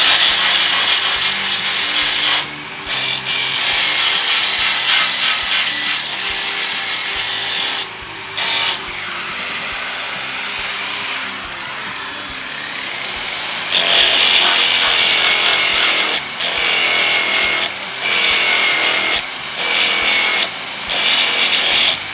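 Angle grinder with a sanding disc grinding welded steel on a car fender, the disc rasping over the metal to rough in the shape. It lifts off the panel in several short breaks, with a lighter, quieter pass through the middle.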